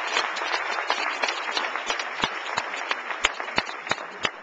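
Audience applauding, a dense patter of many hands that thins out to scattered single claps as it dies down toward the end.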